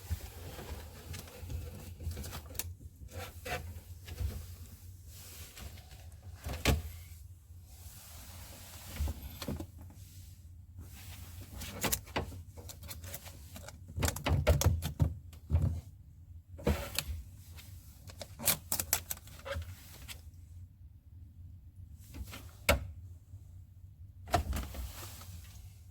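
Scattered clicks, knocks and rattles of refrigerator parts being handled during repair work, with a cluster of louder knocks a little past the middle, over a steady low hum.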